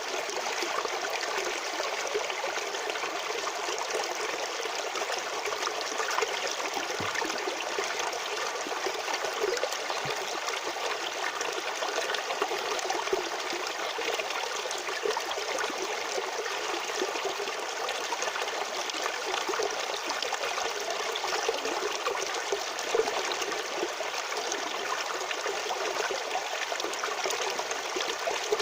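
Natural stream water flowing and trickling steadily, a bright, even rush with little low rumble.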